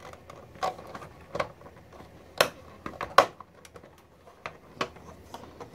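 Hard plastic parts of a Transformers Titans Return Fortress Maximus toy clicking and knocking as a leg guard panel is handled and pressed onto the leg. Scattered small clicks, with two sharper snaps about two and a half and three seconds in.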